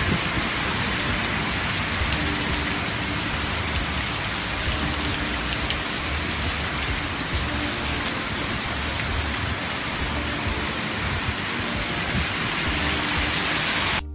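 Steady hiss of heavy rain, cutting off abruptly near the end.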